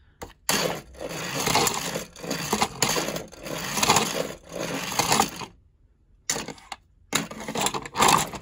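Plastic toy train and plastic track clattering and scraping as the engine is moved by hand on a toy turntable, in irregular bursts with a short pause about six seconds in.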